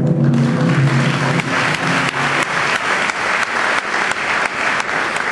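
Audience applauding, as the backing music ends about two seconds in.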